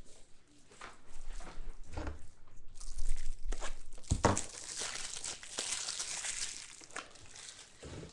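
Trading-card pack wrappers crinkling and tearing open, with light knocks of cards being handled; the crinkling is loudest through the middle of the stretch.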